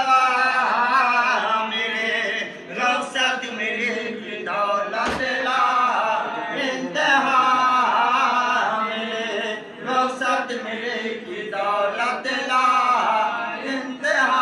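Unaccompanied male chanting of a marsiya, a mournful Urdu elegy for Imam Hussain, sung in a slow, wavering melodic recitation.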